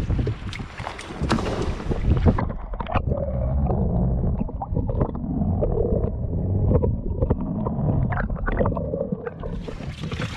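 A prawn trap goes over the side of a small rowboat with splashing and wind noise. About two seconds in the sound turns muffled, with gurgling and bubbling as heard underwater while the trap sinks on its line. Open-air wind and water noise come back near the end.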